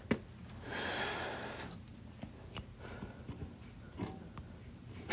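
A man's single breathy exhale about a second in, with a few faint taps against quiet room tone.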